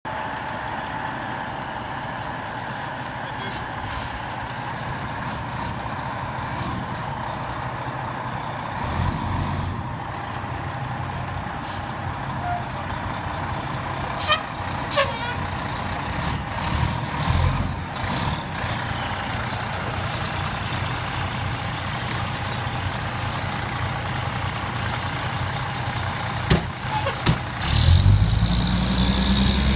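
Diesel engine of a Pierce fire ladder truck running steadily, with sharp air-brake hisses about halfway through and again near the end. Then the engine note rises as the truck pulls away.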